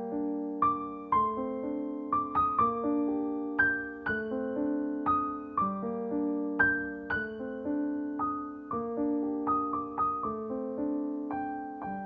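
Background piano music: a slow, gentle melody of struck notes that ring and fade over held chords.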